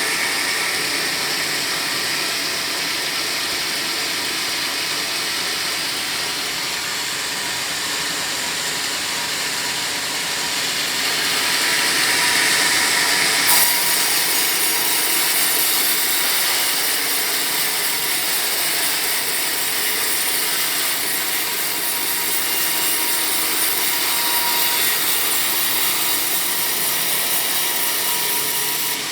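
Sawmill blade cutting lengthwise through a teak log, a steady noisy cutting sound. About halfway through there is a brief click, and the cut turns harsher and brighter.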